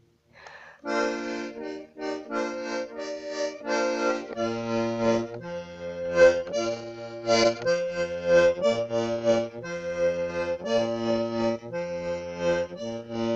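Button accordion playing a tune in chords, starting about a second in after a brief pause. From about four and a half seconds in, low bass notes alternate with the chords in a steady oom-pah rhythm.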